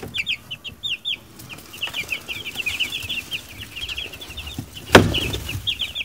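Week-old meat-bird chicks peeping, many short high cheeps overlapping, busier in the second half. A single loud knock about five seconds in.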